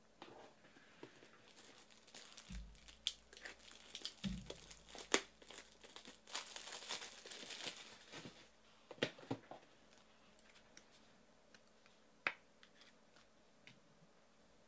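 A 2018 Panini Select card pack wrapper being torn open and crinkled, with scattered clicks and two low thumps early on. The crinkling is thickest in the middle and thins out into a few light clicks.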